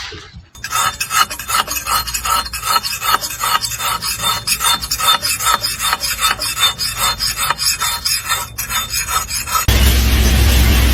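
Rhythmic rasping, scraping strokes, about four a second, as of something being filed or scraped by hand. Near the end it cuts abruptly to a loud, steady noise with a low hum.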